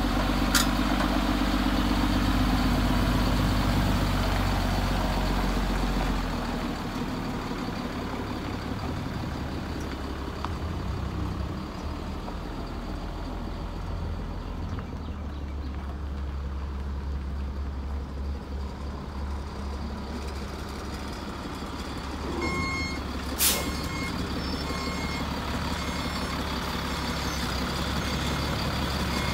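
Heavy diesel truck engine idling with a steady low hum that shifts about six seconds in. Near the end a backup alarm starts beeping about once a second, and a single sharp click sounds among the first beeps.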